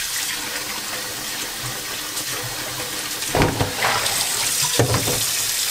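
Kitchen tap running into a stainless-steel sink while boiled sweet potato stems are rinsed by hand in a pan of water. There is louder splashing about three seconds in and again just before the end as the pan is tipped out into the sink.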